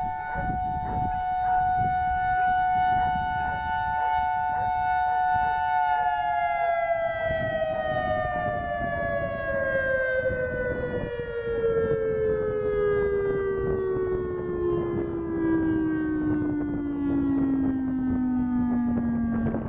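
Federal Signal EOWS 612 electronic outdoor warning siren sounding a steady two-note alert chord; about six seconds in, the pitch slides smoothly and steadily down as the alert winds down to its end. The level swells and fades as the rotating horn array turns, with wind noise on the microphone underneath.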